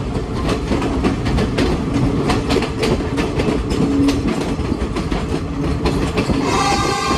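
Passenger train running, heard from inside the carriage: a steady rumble with the clickety-clack of the wheels over rail joints. Near the end the train's horn starts to sound.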